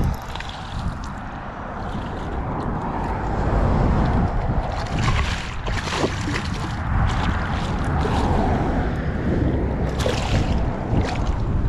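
A hooked northern pike thrashing and splashing in shallow water at the shoreline, with sharp splashes about halfway through and again near the end, over a steady low rumble of wind on the microphone.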